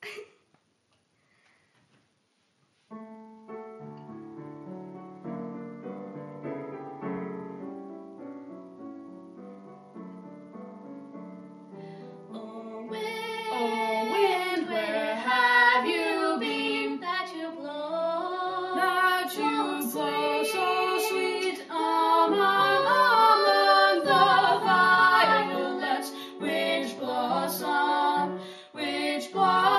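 A piano introduction starts about three seconds in, and about ten seconds later a teenage girl and boy begin singing a duet over the piano accompaniment.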